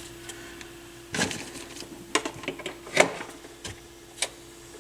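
Scattered light clicks and knocks of plastic and metal turntable parts being handled and prodded, four or five distinct ones, over a faint steady hum.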